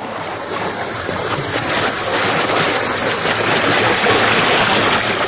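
River water rushing through a gap in a low stone weir between boulders, a steady hiss-like rush. It swells over the first couple of seconds and eases off near the end.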